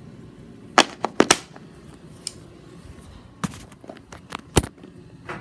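Handling noise: about half a dozen sharp knocks and clicks as toy number pieces and the filming phone are moved about, with a cluster about a second in and more further on.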